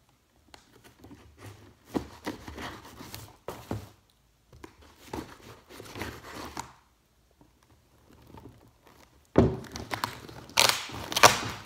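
Clear packing tape on a cardboard box being scraped and cut at, in short scratchy bouts, then a louder tearing of tape and cardboard over the last two seconds or so.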